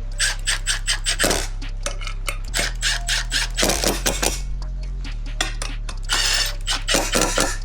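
Background music with a steady beat: sustained bass notes that change every couple of seconds under quick, sharp percussion hits.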